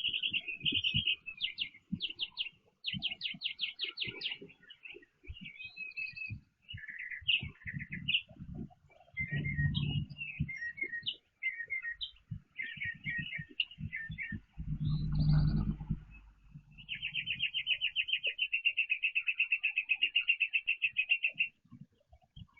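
Backyard songbirds chirping and calling in short, varied phrases, with one bird singing a long, even, rapid trill for about five seconds near the end. Low thumps and two heavier low rumbles are mixed in.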